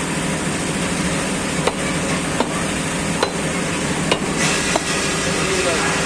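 A butcher's blade chopping beef on a wooden block: about five sharp, irregular strikes, each under a second apart, over steady street and traffic noise that grows a little louder near the end.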